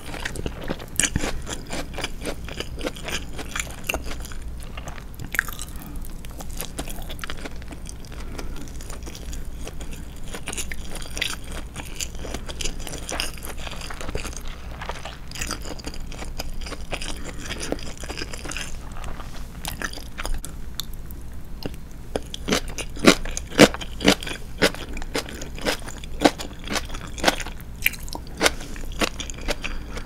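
Close-miked chewing and mouth sounds of a person eating rice: a steady run of small wet clicks and soft crunches, with sharper, louder clicks in the last several seconds.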